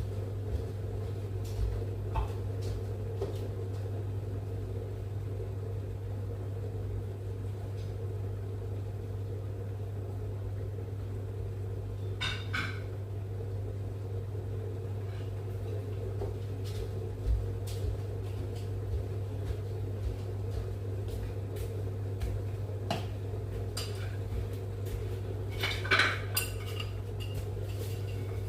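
Pots, pans and cutlery clinking and knocking now and then during cooking, with a small cluster of clinks about twelve seconds in and a busier run near the end, over a steady low hum.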